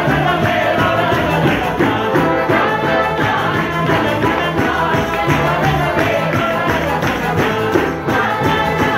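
Live acoustic band playing: violin, accordion and double bass with a tambourine keeping the beat, and a voice singing along.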